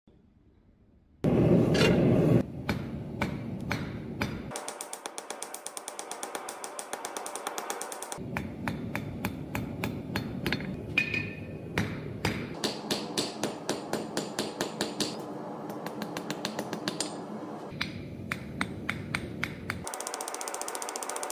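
Hand hammer striking a red-hot steel bar on an anvil, flattening scrap round bar: repeated sharp blows at about three a second, in runs with short breaks, over a steady background noise. A brief loud rush of noise comes about a second in.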